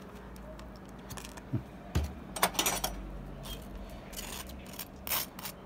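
Metal table knife scraping and clinking as sauce is spread across a crisp toasted burger bun: a few short rasping scrapes and light clicks.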